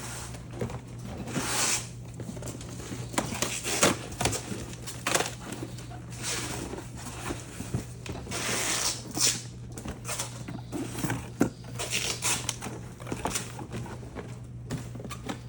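Cardboard boxes being handled: repeated rustling, sliding and scraping of cardboard with a few sharp knocks, over a steady low hum.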